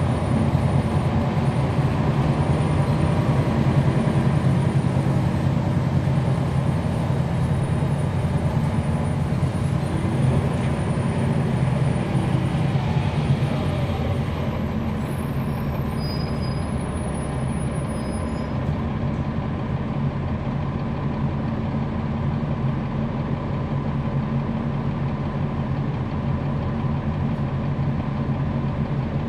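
Cummins ISL9 straight-six diesel of a NABI 416.15 transit bus running steadily at an even pitch, heard from inside the bus. It gets slightly quieter about halfway through.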